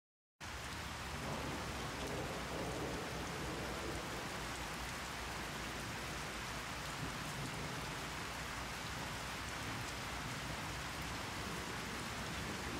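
Steady heavy rain with a low rumble underneath, cutting in abruptly just after the start.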